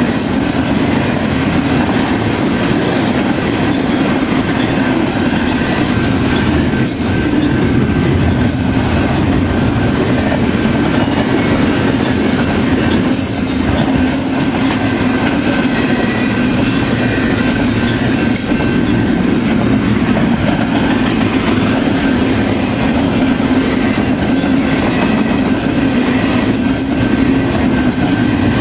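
Double-stack intermodal container cars rolling past close by: a steady, loud rumble of steel wheels on rail with scattered clicks. A thin, steady wheel squeal runs through it.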